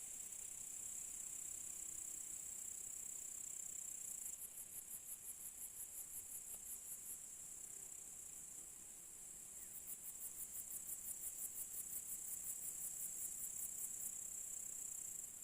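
Crickets stridulating: a steady high trill, broken twice by spells of rapid rhythmic chirping at about five pulses a second, the first about four seconds in and the second in the latter half.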